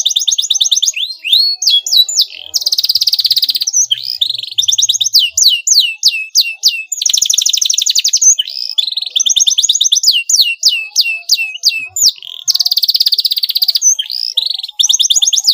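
Domestic canary singing a full, loud song: long, very fast trills alternate with runs of quick down-slurred notes. The song is used as a bait sound to make rival canaries answer.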